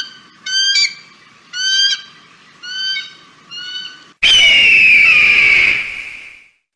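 Eagle calls: a run of about five short, clipped calls in quick succession, then one long harsh scream that cuts in abruptly about four seconds in, falls slightly in pitch and fades after about two seconds.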